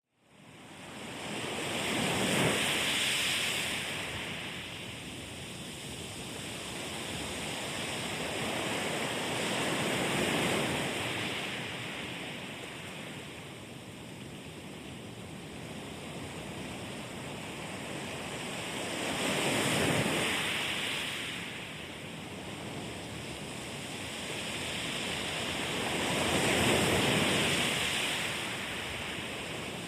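Sea waves washing onto a shore, with a constant hiss of surf that swells into four slow surges and then falls back each time.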